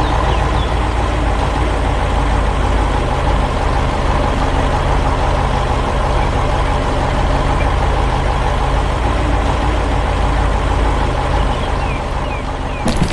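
Heavy construction vehicle engine running steadily with a low rumble, the telehandler's motor as it works. The low end eases slightly near the end.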